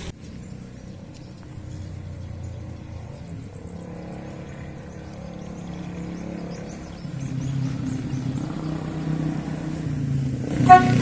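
Vehicle engine running steadily, getting louder about seven seconds in. Near the end comes a short, loud blast of a truck-style air horn.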